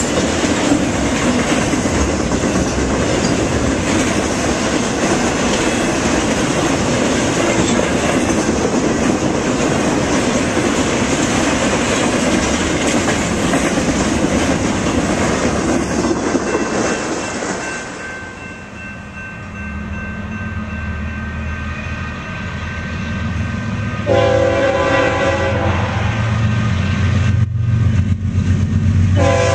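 Freight cars rolling past on the rails with a steady rumble and clatter of wheels, fading out about halfway through. Then BNSF diesel freight locomotives approach with a low engine drone, and the lead unit's air horn sounds a long blast about two-thirds in and again at the very end, as for a grade crossing.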